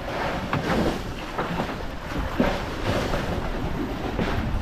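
Fishing boat at sea: wind buffeting the microphone over a steady low rumble, with irregular splashes of water against the hull.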